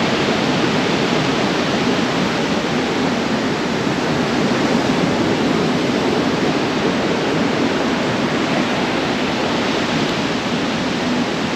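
Beach ambience: a steady, even rushing of sea surf and wind, with no breaks or separate events.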